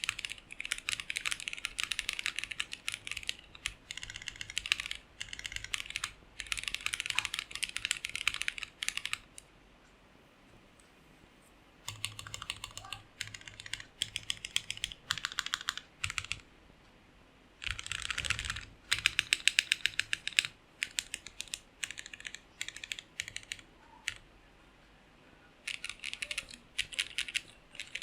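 Typing on a custom 60% gasket-mount mechanical keyboard with linear switches, a polycarbonate plate and an acrylic sandwich case. Fast runs of clacking keystrokes come in bursts a few seconds long, broken by short pauses and a few slower single key presses.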